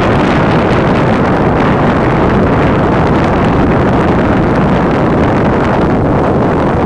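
Steady, loud rush of wind buffeting the microphone, with no distinct engine tone or separate events.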